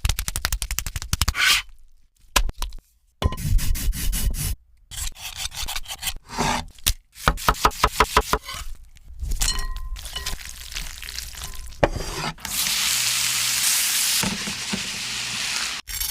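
Cooking sounds in short edited cuts: quick runs of sharp taps and clicks, rubbing and scraping, then a steady sizzle lasting about three seconds near the end.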